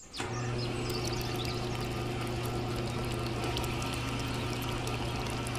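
Small electric motor of a toy concrete mixer switched on, running with a steady hum as it turns the drum. A grainy hiss with small clicks comes from the dry cement and sand mix tumbling inside.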